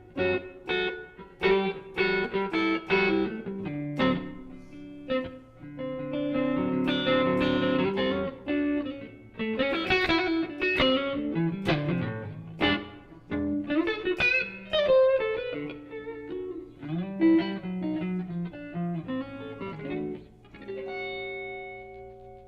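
Electric guitar, a Strat played through the Flex15 single-ended amp on its clean setting at 5 watts into a 2x12 cab, playing blues: picked single-note lines and chords, ending on a held chord that rings out and fades.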